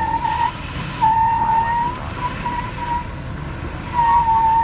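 Lexus LX470's parking-sensor warning beeping, a single electronic tone that sounds in stretches: a long steady tone about a second in, quick short beeps just after, then a steady tone again near the end, warning of an obstacle very close to the vehicle. Under it runs the low rumble of the vehicle crawling.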